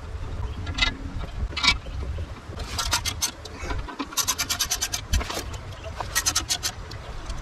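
Hand ratchet clicking in short bursts of rapid clicks, with a couple of separate metal knocks before them, as bolts are turned on a truck's inner oil pan.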